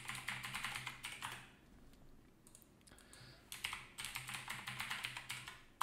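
Typing on a computer keyboard, a rapid run of key clicks in two spells separated by a quieter pause of about two seconds.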